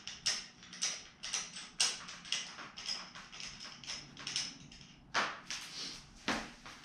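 Short metallic clicks and taps of a 6 mm Allen wrench turning out a mountain bike's thru-axle, about two a second, with two louder knocks in the second half.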